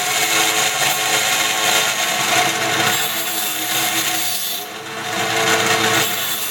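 Cook's automatic saw blade sharpener running, its grinding wheel working the blade teeth with a steady motor hum under the grinding. The grinding eases briefly about four and a half seconds in, then picks up again.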